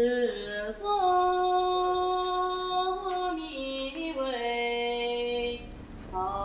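Female voices chanting a slow Buddhist liturgical melody, holding long notes that step up and down in pitch, with a short break near the end.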